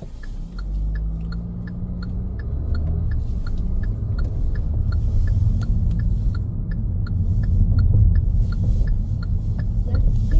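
Car driving on the road: a steady low rumble of engine and tyres, with the engine's pitch rising near the start as it pulls away. A light, even ticking about three times a second runs through it.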